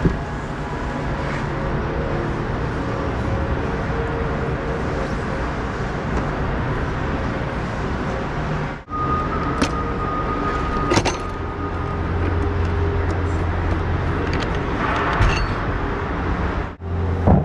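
Steady low drone of machinery and ventilation in a large hall, with light clatter from panels being handled. The sound cuts out abruptly twice, and a thin steady tone sounds for a few seconds around the middle.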